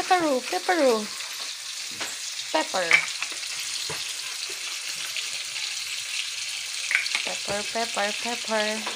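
Butter, onion and garlic frying in a wok over a gas burner: a steady sizzling hiss. A few short pitched calls that fall in pitch sound in the first second, again around three seconds in, and in a run near the end.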